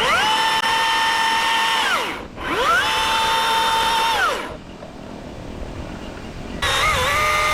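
Milwaukee battery top-handle chainsaw whining at full speed in bursts. It runs for about two seconds, stops and runs again for two more, and after a pause it spins up again near the end. In that last run the pitch dips briefly as the chain takes load in the cut.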